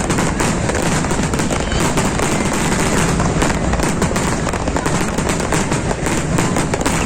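Fireworks display going off in a dense, continuous barrage of overlapping bangs and crackles.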